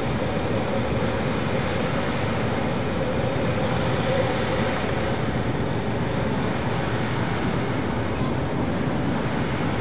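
Manual metal lathe running under cut, its tool turning a steel workpiece: a steady machine drone with the noise of the cut.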